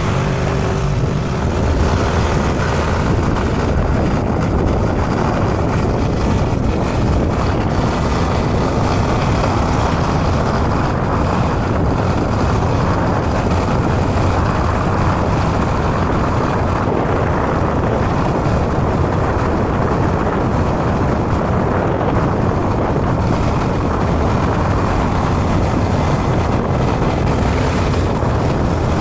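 Motorbike riding at steady speed: wind rushing over the action camera's microphone, mixed with the bike's engine and road noise, a steady loud rumble.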